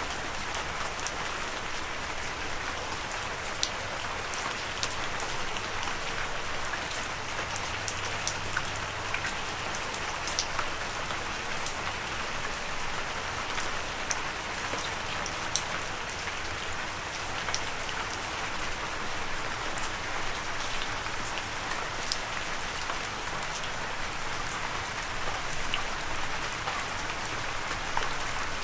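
Steady rain falling, an even hiss with scattered sharper drop impacts.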